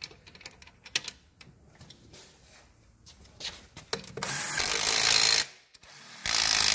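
Pneumatic air ratchet running a nut down onto a forged connecting-rod cap of an RB25/30 engine, in two bursts: a longer one about four seconds in and a shorter one near the end. Before that come light metallic clicks as the nut and socket are handled.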